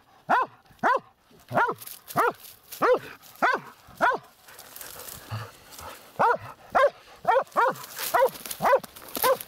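Laika hunting dog barking at a burrow it is digging into, a steady run of short barks about two a second with a pause of some two seconds in the middle. The barking at the den is the dog's signal that it has found an animal inside.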